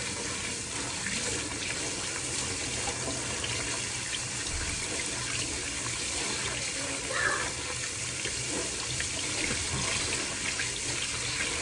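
Kitchen tap running steadily into a mesh sieve of rice as a hand swishes the grains to rinse them.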